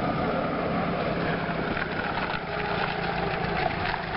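Engine of a small military four-wheel-drive running steadily as the vehicle drives slowly along a dirt track toward the listener.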